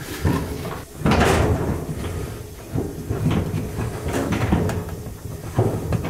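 Irregular knocks and clunks of a dryer drum and its sheet-metal brackets being handled and fitted into the cabinet. The loudest clunk comes about a second in.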